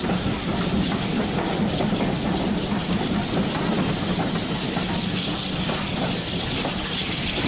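Steam-hauled heritage train running along the line, heard from an open carriage window: a steady rumble and hiss of wheels and rushing air, with a fast regular beat of about four a second.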